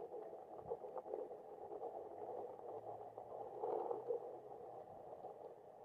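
Hobbywing Quicrun Fusion brushless motor and the RC rock crawler's gear drivetrain whirring faintly under load as the truck crawls slowly up rock, with a few small clicks and a slightly louder swell near the end.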